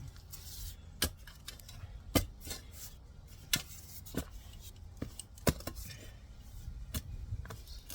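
A shovel blade striking into soil and roots, giving about eight sharp, irregular clinks and knocks a second or so apart.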